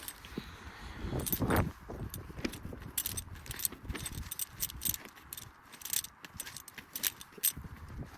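Metal climbing gear jangling and clinking in a run of short, light, high-pitched clicks, with a rustle about a second and a half in.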